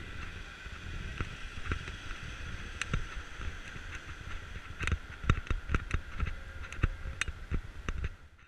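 Wind rumbling on an action camera's microphone over steady city street noise, with a series of sharp knocks and taps in the second half.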